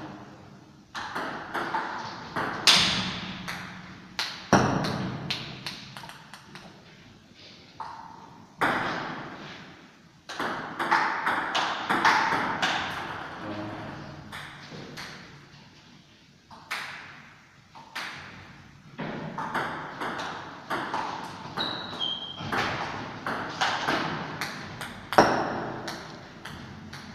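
Table tennis rallies: the celluloid-type ball clicking off rubber bats and bouncing on the table in quick exchanges of sharp ticks, with short pauses between points.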